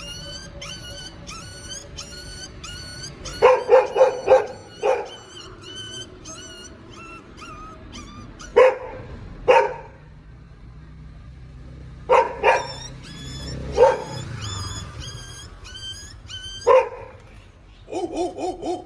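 A dog barking about ten times: a quick run of four near the start, then single barks and pairs spaced a few seconds apart. Underneath, a tune of repeating high chirping electronic notes keeps playing.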